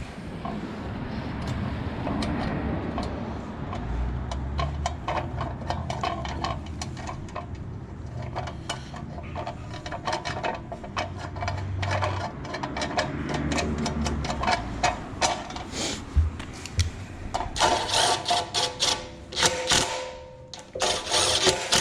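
Hand ratchet wrench clicking in quick runs as the bolts and nuts are tightened, the clicks coming faster and louder near the end.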